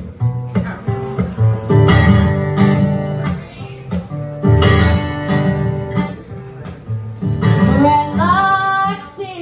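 Acoustic guitar strummed in a steady rhythm as a song's intro. Near the end a young girl's singing voice comes in over the guitar.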